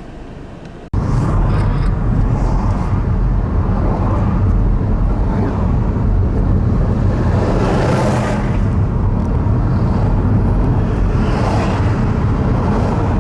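Steady road and engine rumble of a moving car, heard from inside. About a second in, an edit cuts abruptly from a quieter passage to the louder rumble.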